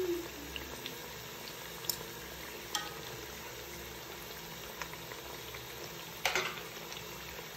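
Samosas deep-frying in hot oil: a steady sizzle and bubbling, with a few sharp clicks, the loudest about six seconds in.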